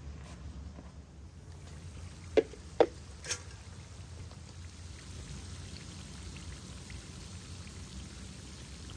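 Wood fire crackling, with three sharp pops in quick succession a couple of seconds in.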